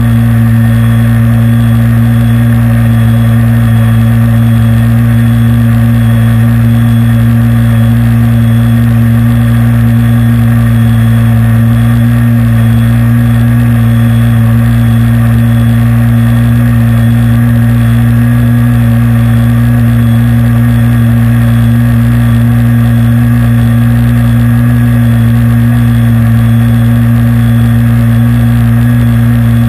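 SuperTigre nitro glow engine of an Aquacraft R/C airboat running, with its propeller, loud and close at one steady speed throughout.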